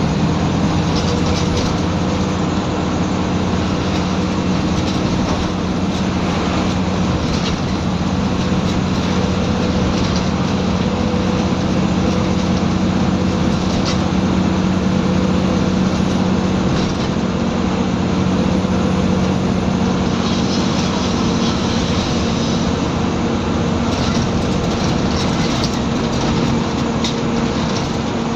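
Scania N94UB bus's nine-litre five-cylinder diesel engine working hard under load, a steady loud drone whose pitch shifts slightly as it pulls.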